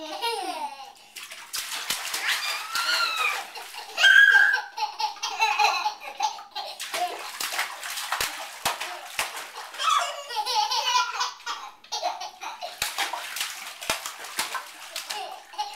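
Young children laughing in a bathtub while a toddler slaps the bathwater with his hand, making repeated splashes.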